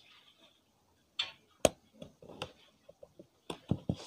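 Ballpoint pen tip jabbing and scraping at the taped edge of a cardboard box to open it: a few sharp clicks and taps with short scuffs between.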